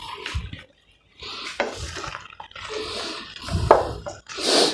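Wet bubbling and dripping from a pan of shredded chicken simmering in stock, with irregular bursts and a brief pause about a second in.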